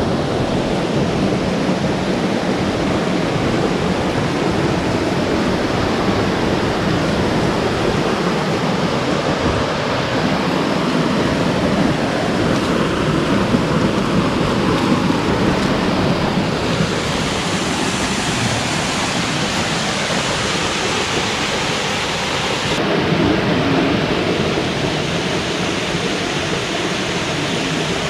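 Creek water rushing steadily over rocks, a loud even rush that grows brighter and hissier about two-thirds of the way through.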